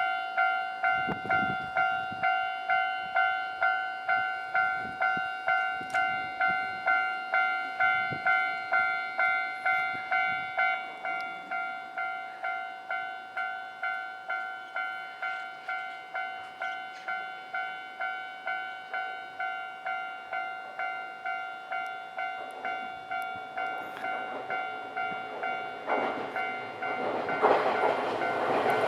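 Japanese level-crossing warning bell ringing steadily, about one and a half strikes a second. In the last few seconds a Nankai Kada Line train's running noise rises over it as the train nears the crossing.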